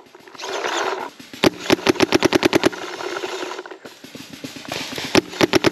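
Paintball marker firing in rapid bursts: a quick string of about a dozen shots, roughly ten a second, then a few more shots near the end. These are shots from a Planet Eclipse ETHA 3 paintball marker.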